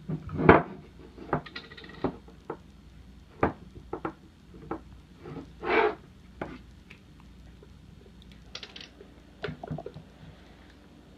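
Homemade wooden puzzle box being handled: irregular wooden knocks and clicks, the loudest about half a second in, a short scrape near the middle and a brief rattle later on.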